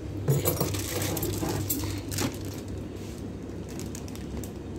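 Thin clear plastic produce bag of bell peppers crinkling and rustling as it is picked up and handled, with a few sharp crackles, over the first two seconds. A low steady hum runs underneath.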